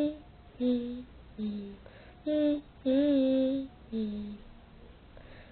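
A voice singing a slow wordless tune in five separate held notes with short pauses between them.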